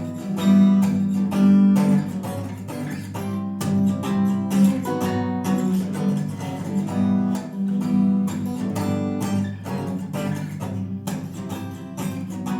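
Instrumental break in a rock song: acoustic guitar strumming chords in a steady rhythm.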